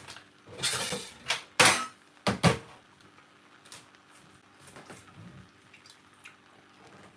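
Kitchenware handled off camera: three short clatters, a scrape, then two knocks, within the first three seconds, the middle knock the loudest, followed by a few faint clicks.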